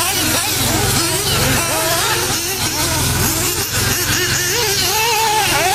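Several 1/8-scale nitro buggy engines buzzing and revving around the track. Their high pitches rise and fall as the cars accelerate and brake through the corners.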